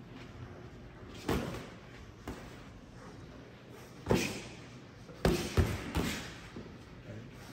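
Boxing gloves landing on gloves and headgear during sparring: a thud a little over a second in, another about four seconds in, then a quick run of three, each with a short echo of a large gym.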